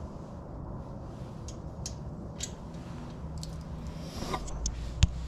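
Light clicks and ticks of small parts being handled during an AR-15 handguard install, with a brief rustle, then one sharp knock about five seconds in.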